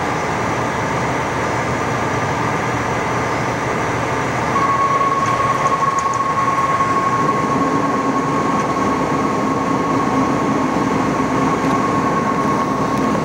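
Fire engine running at idle, a steady loud rumble. A steady high whine joins about four and a half seconds in, and a lower hum a few seconds later.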